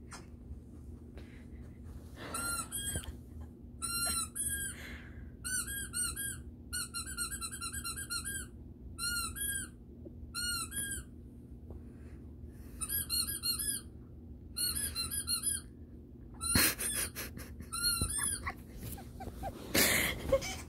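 Rubber squeaky dog toy squeaking over and over through a TV's speakers, in runs of several quick squeaks with short pauses between them. A few knocks and a rustle come near the end.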